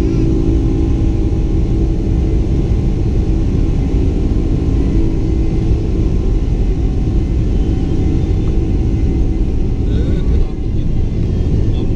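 Boeing 747's General Electric CF6 turbofan engines at take-off thrust and the runway rumble of the take-off roll, heard inside the cabin over the wing: a loud, steady rumble with a steady engine hum. The level dips briefly about ten and a half seconds in.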